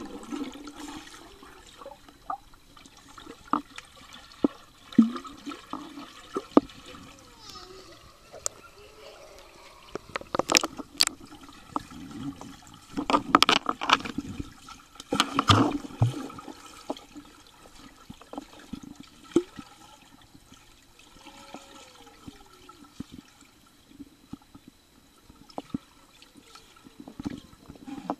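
Pool water heard underwater: muffled bubbling and sloshing as a child in arm floats paddles and kicks, with a few louder bursts of churning water about halfway through.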